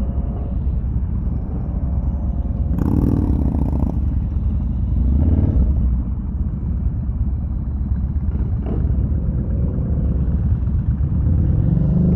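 Yamaha Bolt air-cooled V-twin motorcycle engines running at low speed: a steady low rumble, with a few brief louder moments.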